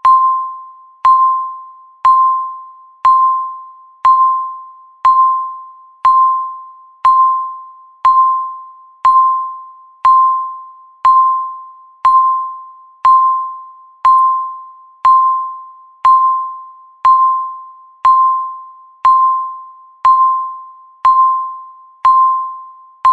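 Countdown timer beeping once a second: each beep is a single pitched ding that starts sharply and fades away before the next.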